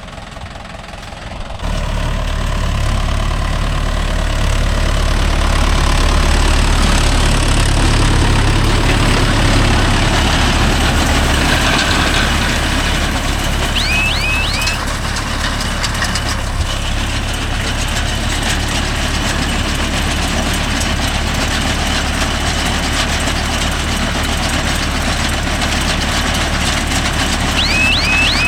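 Mahindra Yuvo Tech Plus 585 tractor's diesel engine running steadily while driving a Bharat baler, coming in suddenly about two seconds in. Short high chirps sound twice, near the middle and near the end.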